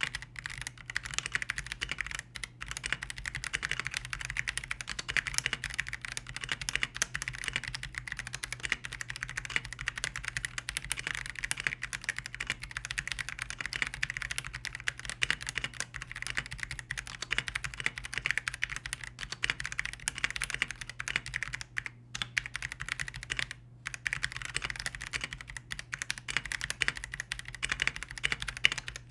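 Typing on an Akko PC75B Plus 75% mechanical keyboard: a fast, continuous stream of keystroke clacks, broken by a few short pauses.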